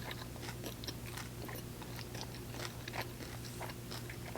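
Close-up chewing and biting of a crispy fried teriyaki chicken wing: many small irregular crunches and wet clicks of the mouth, over a low steady hum.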